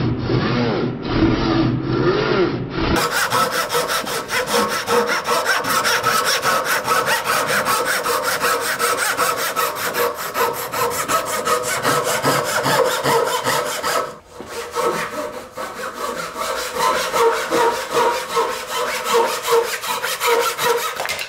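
Japanese dozuki pull saw cutting a strip of wood held in a vise, in rapid, even back-and-forth strokes. The strokes break off briefly about two-thirds of the way through, then resume in shorter runs. The saw is dull, by the owner's account one that barely cuts.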